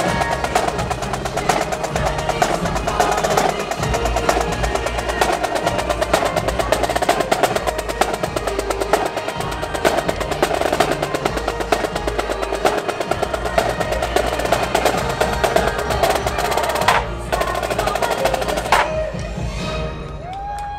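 Parade music driven by a marching snare drum line playing fast rolls and rhythms over a festive holiday song. Near the end the drumming drops away and the music goes on a little quieter.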